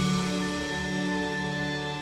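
Soft background music with sustained, held notes.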